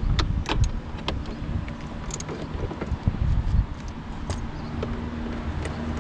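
Irregular clicks and light knocks from the stripped driver's door of a Mercedes W221 being swung and handled, its inner metal and door-stop parts knocking. A low rumble of handling or wind noise lies on the microphone throughout.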